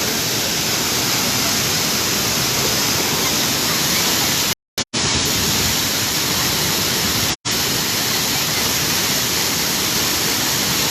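Steady rush of a waterfall. The sound cuts out completely twice, briefly, a little under halfway through and again after about seven seconds.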